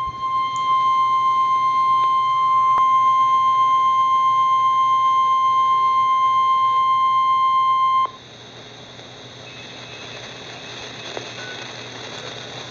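NOAA Weather Radio's 1050 Hz warning alarm tone, a loud steady single-pitched beep that signals a warning is about to be read. It cuts off sharply about eight seconds in and leaves a few seconds of quieter radio hiss.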